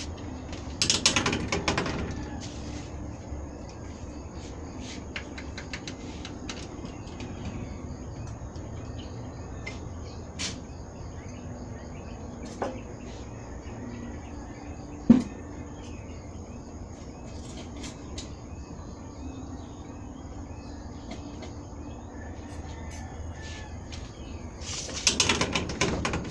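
Steady quiet background ambience with a few isolated sharp knocks, the loudest about fifteen seconds in, and short bursts of rustling noise about a second in and near the end.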